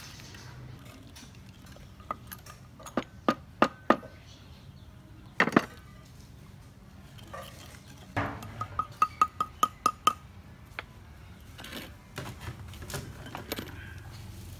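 A spoon and wooden pestle knocking in a wooden mortar. There are scattered sharp taps, then a heavier knock about five and a half seconds in, then a quick run of about eight ringing clinks at roughly four a second.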